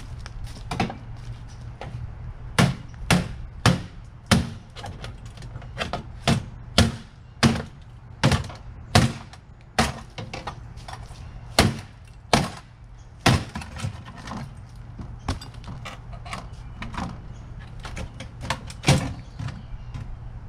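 A string of sharp knocks and bangs, irregular, roughly one or two a second, as an old microwave oven is worked apart, over a steady low hum.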